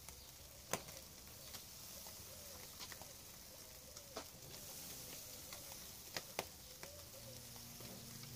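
Faint, scattered crackles and pops from a charcoal grill, with a whole fish on it being brushed with olive oil. A faint wavering tone runs underneath.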